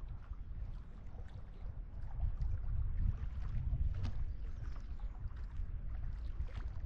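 Wind buffeting the microphone in a low, gusting rumble that strengthens about two seconds in, with small wavelets lapping and splashing against the rocky lakeshore.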